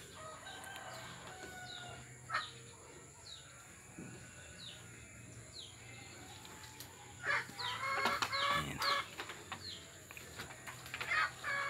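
Domestic poultry calling: faint, repeated short high chirps, then a loud, pulsed, many-pitched call about seven seconds in and another near the end.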